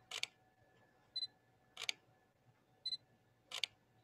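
Camera shutter releasing three times, about every one and a half to two seconds. Between the shots come short, high electronic beeps.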